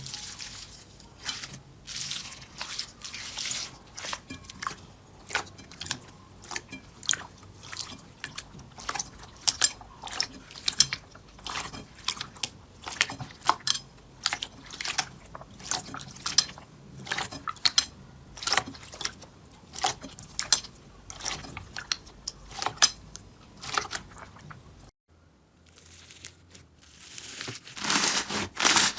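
Slime being pressed and pulled by hand, giving an irregular run of sharp sticky clicks and pops, several a second. Near the end it breaks off briefly, then louder, denser crackling begins.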